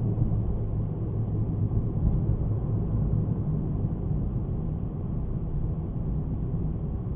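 A car driving, heard by a dashcam: a steady low rumble of engine and road noise that eases slightly toward the end.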